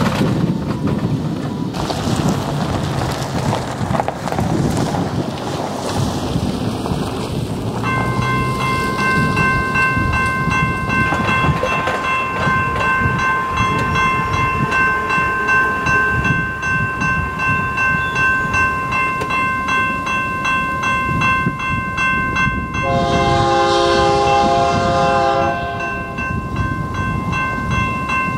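Rumble of a passing train for the first several seconds, then a railroad crossing bell ringing steadily with fast strokes from about eight seconds in. An approaching locomotive's air horn, a chord of several notes, sounds a blast of about three seconds near the end and starts another just before the end.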